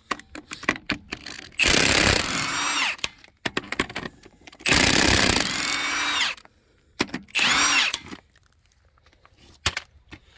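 Power impact wrench spinning lug nuts off a jacked-up Jeep Cherokee's front wheel, in three runs, the first two over a second long and the third short, its motor whine rising and falling in pitch. Light metallic clicks fall between the runs.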